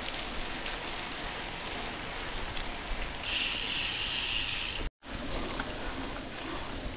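Mountain bike riding up a concrete road: steady tyre and drivetrain noise with wind on the microphone. A higher hiss comes in for about a second and a half, then the sound cuts out for an instant a little past the middle.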